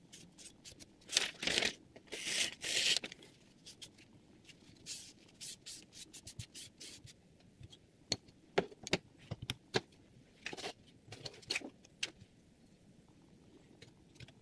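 Hands working a Hapstone R2 guided knife sharpener: short scraping rubs over the clamped blade about a second in, then a run of light clicks and knocks as the stone holder and guide rod are handled.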